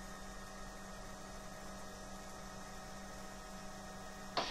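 Steady in-flight hum of a Bell 505 helicopter, made of several constant tones. Near the end there is a click and a burst of hiss.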